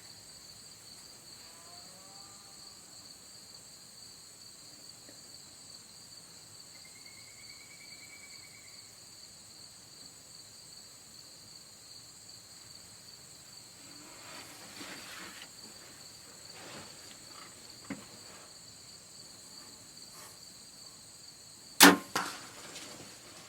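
Bow shot: one sharp, loud crack of the bowstring release, followed about half a second later by a second, quieter smack of the arrow hitting the doe. Steady insect chirring runs underneath.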